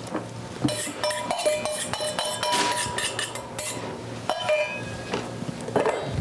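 Stainless steel mixing bowl clinking and scraping against a glass baking dish while a spatula scrapes marinade out of it: a run of quick metallic clinks with ringing tones for about three seconds, then a couple more clinks.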